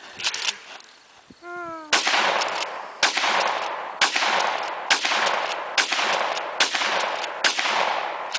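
Shotgun fired seven times in quick succession, about one shot a second, each blast trailing off in a long fading echo.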